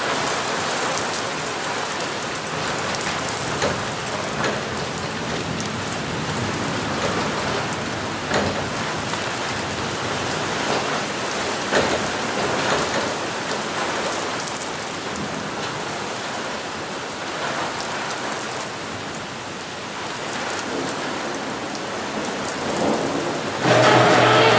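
Heavy rain falling steadily during a thunderstorm, a dense hiss with scattered sharper drop impacts. Near the end a louder sound with steady tones at several pitches cuts in suddenly.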